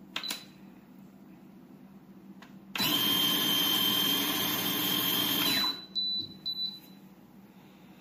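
Electric coffee grinder motor running for about three seconds, grinding coffee beans, with a steady whine over the noise; it starts and stops abruptly. Short electronic beeps from the control panel as buttons are pressed, one near the start and a couple just after the motor stops.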